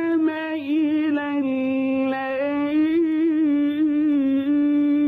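Male Qari's voice in melodic Quran recitation, holding one long ornamented vowel with quavering turns, the pitch stepping down around the middle and back up.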